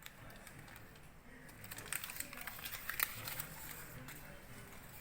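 Baking parchment paper crinkling as it is peeled off a cake, in a run of small crackles through the middle.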